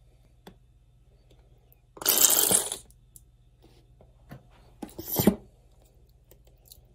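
A squeeze bottle of Hidden Valley bacon ranch dressing being shaken and squeezed, giving two loud, short noisy sputters about two and five seconds in, with a few light clicks between.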